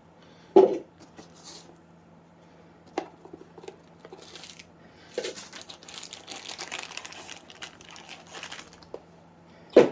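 Packaging material crinkling and rustling as it is handled, with a sharp knock about half a second in and another near the end.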